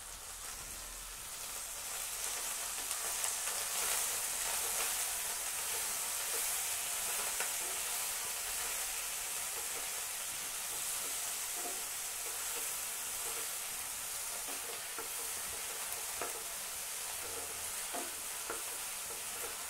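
Coriander leaves, tomatoes and shallots frying in oil in a nonstick pan, sizzling with a steady hiss while a wooden spatula stirs them, with scattered soft knocks and scrapes of the spatula against the pan.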